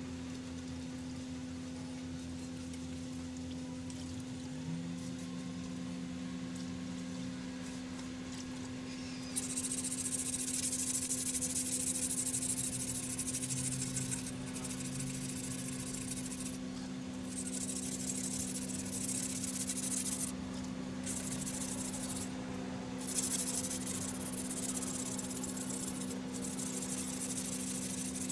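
A steady low mechanical hum, joined about nine seconds in by a loud high hiss that cuts out and comes back several times.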